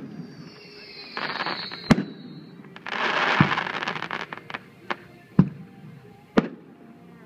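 Aerial fireworks shells bursting in sharp booms, about five of them, with two stretches of dense crackling about one and three seconds in. Over the first two seconds a high whistle falls slightly in pitch.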